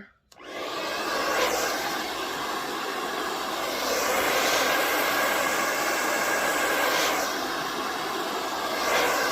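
Handheld blow dryer switched on and running steadily: a loud rushing whoosh of air with a faint steady whine, swelling slightly every few seconds.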